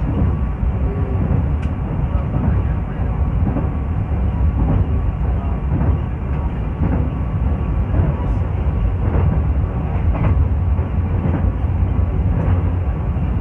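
Passenger train running at speed, heard from inside a carriage: a steady low rumble of wheels on the rails, with faint knocks over rail joints about once a second.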